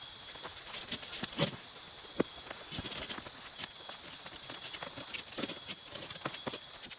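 Raindrops striking tent fabric in irregular, scattered taps, over a faint steady high tone.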